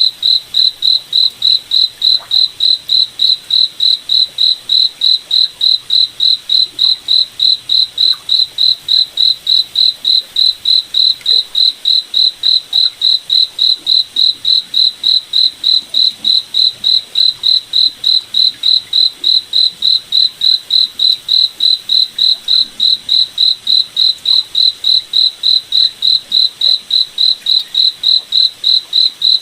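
A cricket chirping in a steady, even rhythm, a few short high-pitched chirps a second, with a faint background hush beneath.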